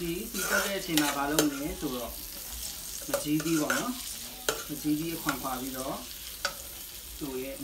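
Metal ladle stirring and scraping around an aluminium electric wok while sliced shallots and garlic sizzle in hot oil. Each stroke draws a wavering pitched scraping tone, with sharp clinks of the ladle against the pan in between.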